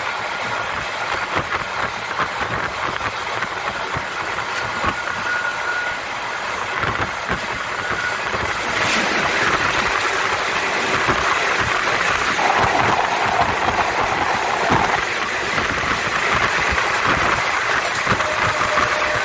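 Train running noise heard from an open coach doorway, with wheels knocking over rail joints. About nine seconds in it turns into a louder, denser rush as a freight train of covered wagons passes close on the adjacent track, and a held tone sounds for a few seconds midway.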